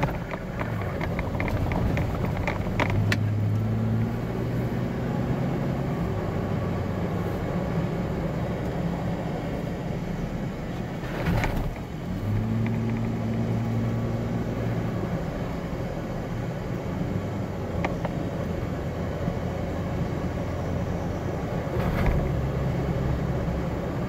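Engine and tyre noise inside the cabin of a four-wheel-drive vehicle driving along firm beach sand. The engine note steps in pitch a few times. There is a short dip with a knock about halfway through and another knock near the end.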